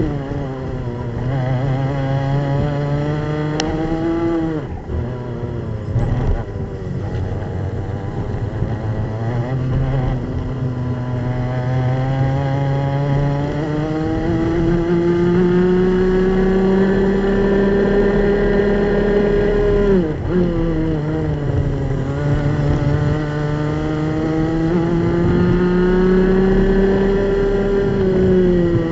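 Onboard sound of a two-stroke racing kart engine at high revs under racing load. Its pitch climbs slowly along the straights and drops sharply under braking, once about twenty seconds in and again near the end.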